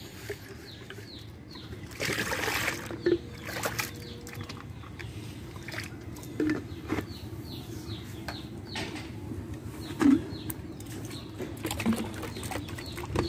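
Sonali chicken chicks peeping over and over, short high falling peeps, with scattered knocks and a brief clatter about two seconds in.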